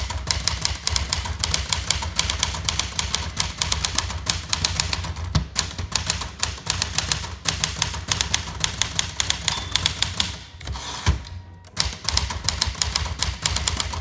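1960 Smith Corona Galaxie manual portable typewriter being typed on quickly: a fast, continuous run of key and typebar clacks, with a short pause about ten and a half seconds in and a single louder clack just after.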